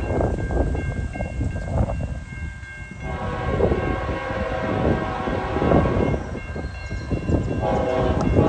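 Norfolk Southern freight locomotive's multi-chime air horn sounding in blasts, a long chord starting about three seconds in and another near the end, over a steady low rumble.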